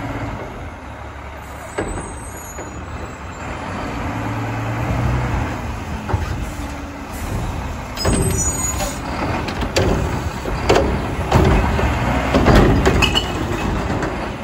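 Front-loading garbage truck with a Curotto-Can cart arm: the diesel engine runs and rises in pitch as the truck pulls forward. About eight seconds in it stops with a short air-brake hiss, then the arm grabs and lifts a cart, with clunks and knocks over the engine.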